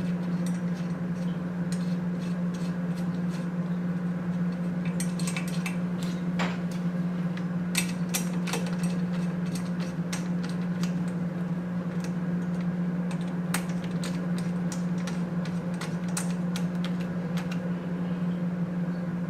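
Small irregular metal clicks and taps of M4 screws being screwed in to fix the limit switch assembly onto the arm, over a steady low hum.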